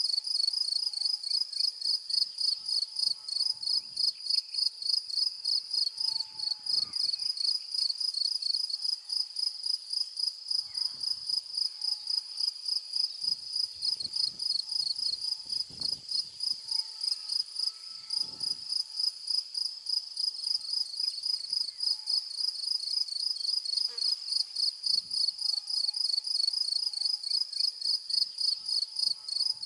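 Insects chirping in a steady, high-pitched, rapid pulse, about two to three chirps a second, without a break.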